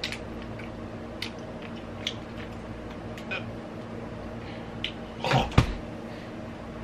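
A man gagging in disgust at the taste of a candy: one loud retching sound that falls in pitch, about five seconds in. Faint scattered clicks come before it.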